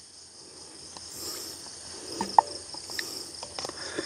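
A steady chorus of night insects such as crickets, with a few light clicks and taps from about two seconds in as a utensil scoops butter from a tub into a small frying pan.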